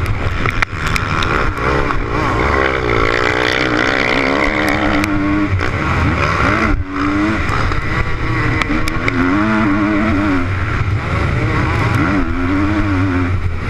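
Motocross bike engine heard up close while racing, its revs rising and falling through corners and straights. The throttle is briefly cut about seven seconds in.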